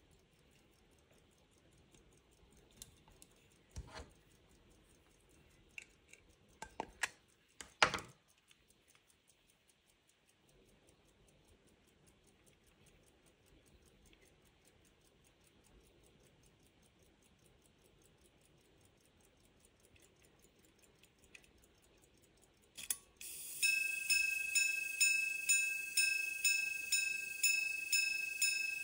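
Quarter-repeating pocket watch: the movement ticks faintly and steadily while the case is handled with a few clicks, then a click about 23 seconds in sets off the repeater and it begins striking the hours, evenly spaced notes about two a second, each ringing on.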